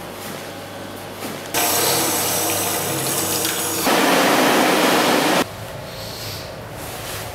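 Tap water running into a washroom sink. It starts suddenly, gets louder as hands go into the stream, then cuts off abruptly.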